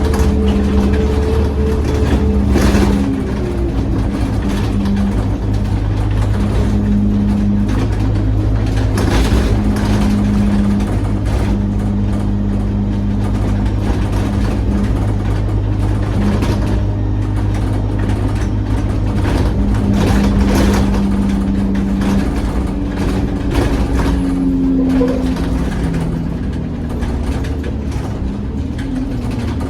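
A diesel bus's engine and drivetrain heard from inside the bus while it drives, with steady low engine tones that change pitch as it speeds up and slows, and frequent knocks and rattles from the body.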